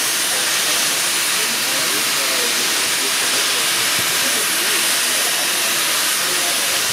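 Standing NSWGR 30 class tank steam locomotive 3016 venting steam with a loud, steady hiss. Faint voices sound underneath.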